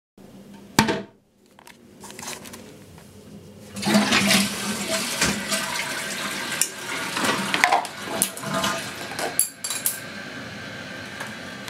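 A toilet flushing: a sharp click near the start, then water rushing loudly from about four seconds in, with a few knocks over it, settling to a quieter steady rush near the end.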